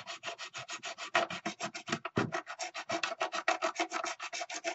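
Thin file rasping quickly back and forth inside a crack in the Bakelite cabinet of a 1950 Zenith G516 radio, about ten short, even strokes a second. It is taking material out of the crack so that the crack can be filled with epoxy.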